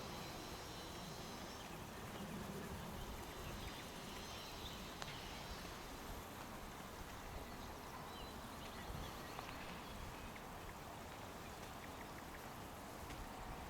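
Faint, distant birds calling in short chirps and a thin whistle over a steady outdoor hiss.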